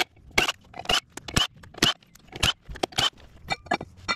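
A Ryobi cordless drill working a fastener at the centre of a compact track loader's wheel hub, run in short trigger bursts about every half second, with a quick rattle of clicks near the end.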